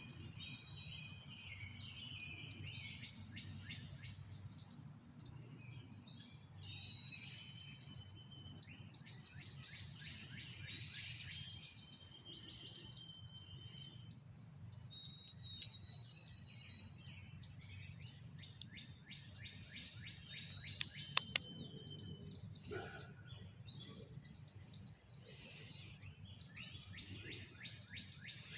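Many small birds chirping and whistling over a low, steady background rumble. A couple of sharp clicks come about three quarters of the way in.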